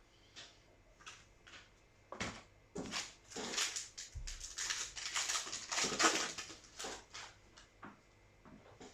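Foil booster-pack wrapper crinkling and tearing as it is opened, with cards being handled. There are a few light clicks at first, then about two seconds in a dense, crackly rustle that lasts most of the rest.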